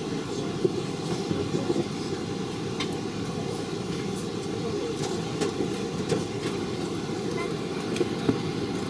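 Steady low rumble inside a jet airliner's cabin on the ground, engines and ventilation running, with a few faint clicks.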